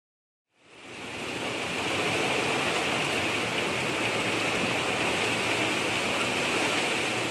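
A steady rushing hiss fades in after about half a second of silence and then holds level.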